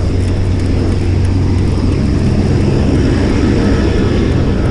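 Steady low wind rumble on the microphone of a fixed-gear bicycle being ridden along, the air rushing past as it rolls.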